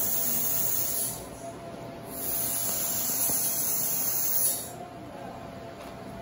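Slow-speed dental handpiece with a disc trimming a temporary crown held in the fingers: a high, hissing whir in two runs, a short one and then a longer one that stops about three-quarters of the way through.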